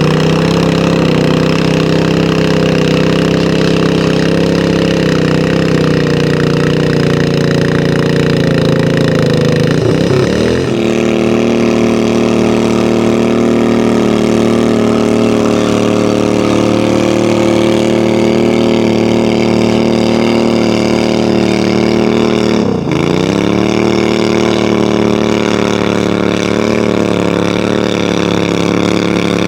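Tractor engine running hard and steadily under load in a tractor pull. Its pitch dips sharply and recovers twice, about ten seconds in and again a little after twenty seconds, as the engine bogs and picks back up.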